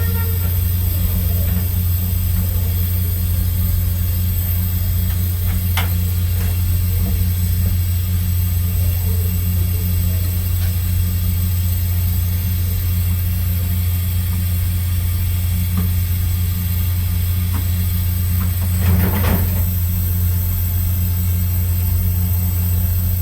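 Steady low machine hum, with a few sharp knocks and a louder clatter about nineteen seconds in.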